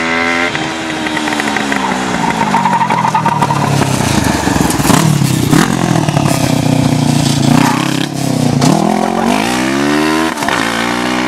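Racing lawnmower's motorcycle engine running hard. Its pitch drops over the first couple of seconds, stays lower and rough with some clattering, then climbs steeply twice near the end as it revs up.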